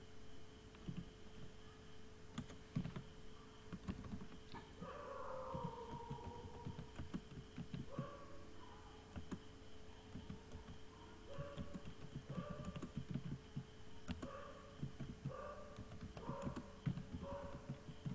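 Computer keyboard being typed on in irregular bursts of key clicks. A faint steady hum lies underneath, and from about five seconds in, short whining tones come and go in the background, the first one falling in pitch.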